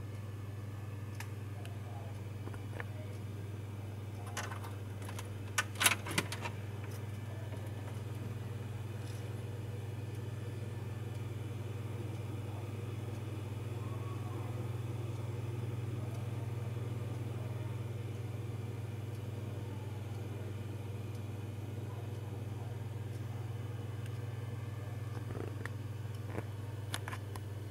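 HP MicroServer N54L running, a steady low hum of its fans and hard drives. About five to six seconds in come a few sharp clicks and a key rattle as its front door is unlocked and opened, and a couple of lighter clicks come near the end.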